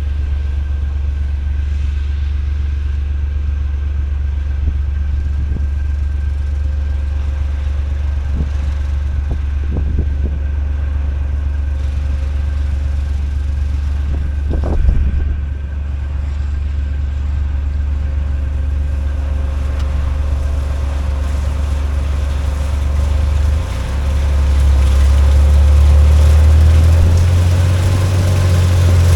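Combine harvester running steadily while cutting soybeans, a loud low rumble with a steady hum above it. There is a single knock about halfway through, and the rumble grows deeper and louder near the end.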